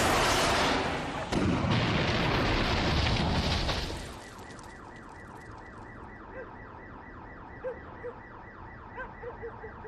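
Bazooka blast, then a second, longer explosion about a second in that lasts a few seconds. As it dies away a car alarm starts up, sounding in a fast, evenly repeating cycle.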